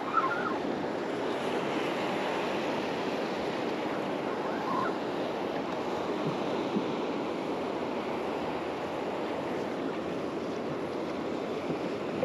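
Surf breaking and washing up onto a sandy beach, a steady rush of waves.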